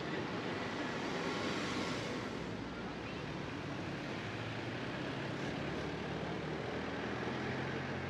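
Street traffic: cars passing along the road, a hiss of tyres swelling and fading in the first seconds, then a low engine hum.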